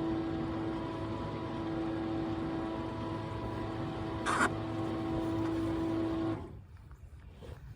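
Boat motor running with a steady hum, then switched off about six seconds in, leaving it much quieter. A short sharp knock a little past four seconds.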